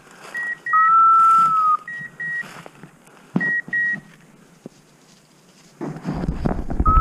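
Electronic beeps from hunting-dog beeper collars: short double beeps repeating about every one and a half seconds, with a longer steady tone of about a second between the first two pairs. About six seconds in, loud rustling and brushing noise starts as the hunter pushes through cover.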